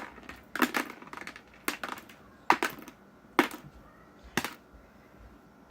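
Small metal computer screws clicking as they are picked up and dropped into a screw bucket: a series of sharp clicks, about one a second, a few of them in quick pairs or triples.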